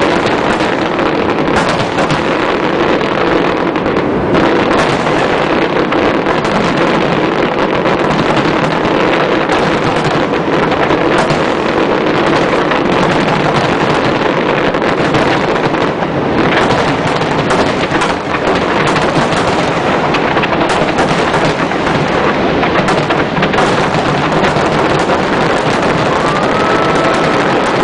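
Fireworks display: a dense, continuous barrage of aerial shell bursts, with many sharp reports over an unbroken din.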